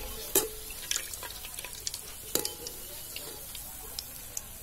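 Hot oil sizzling in a wok as fried chicken pakoras are lifted out with a perforated metal skimmer, the oil dripping back. A few sharp clinks and scrapes of the skimmer against the pan, the loudest about half a second and two and a half seconds in.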